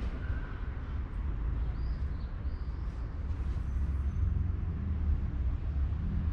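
Steady low outdoor rumble of city background noise, with a few faint, short high chirps in the first few seconds.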